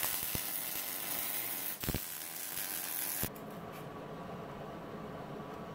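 Wire-feed welder arc crackling and hissing while tack-welding a steel body mount support onto a truck frame: two welds with a short break between them, stopping about three seconds in. A fainter steady hum remains afterwards.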